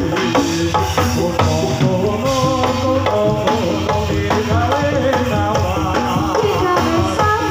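Gamelan music accompanying a jathilan horse-trance dance: kendang hand drums beating under pitched, wavering melodic lines.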